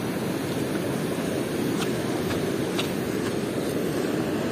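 Steady wash of surf on a sandy beach, with wind noise on the microphone and a few faint ticks in the middle.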